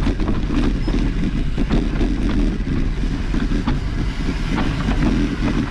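A mountain bike ridden over rough trail: a steady rumble of tyres on dirt with a constant rapid clatter and rattle of the bike.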